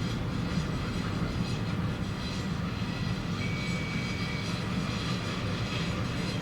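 DSB SA-series S-train with Siemens GTO-inverter traction running along the line, a steady low rumble of the train on the rails. A faint steady high tone is heard for about a second around the middle.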